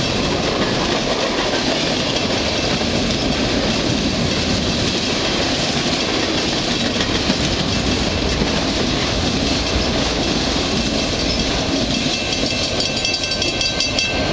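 Freight train cars (covered hoppers, tank cars and stacked container cars) rolling past, a steady rumble and clatter of steel wheels on the rails.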